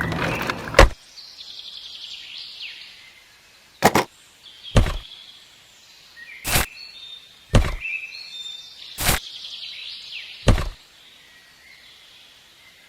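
Birds chirping in the background, broken by short, sharp knocks or taps every second or two, about six in all. A busier clatter cuts off about a second in.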